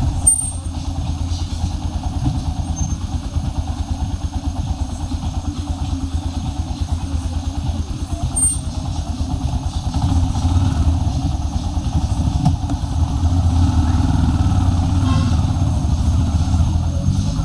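Motorcycle engine running steadily with rapid firing pulses, getting louder about ten seconds in and again a few seconds later.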